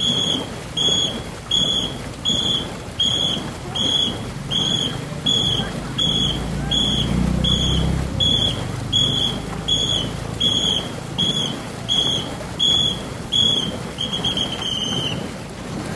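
A whistle blown in short, even blasts, about three every two seconds, calling the paddle-stroke rhythm for a ngo racing boat crew. Near the end the blasts run together into a longer blast and stop. Beneath them runs a steady low rumble.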